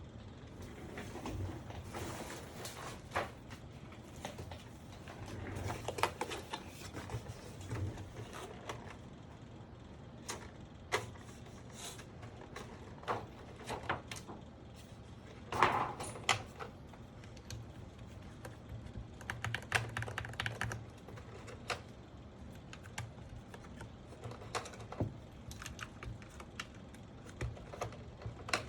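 Keys on a Sky87 mechanical keyboard with Gateron Pro Milky Yellow switches being pressed in irregular bursts, each a short clack, with the loudest clack about sixteen seconds in.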